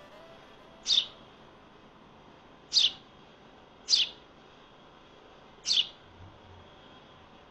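Fledgling sparrow chirping four times, each a short sharp high call that drops quickly in pitch, spaced one to two seconds apart.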